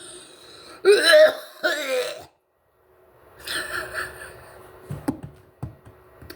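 A person's voice making sounds that are not words, in two bursts, about a second in and again about three and a half seconds in.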